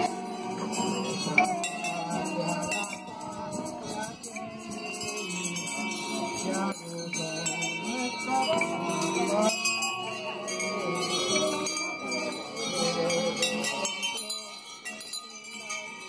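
A procession's music: people singing a hymn to strummed guitars, with a jingling of bells.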